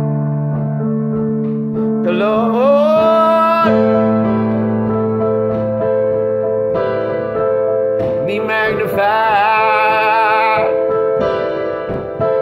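Slow music of held keyboard chords, with a singing voice holding long notes with vibrato about two seconds in and again from about eight to ten and a half seconds.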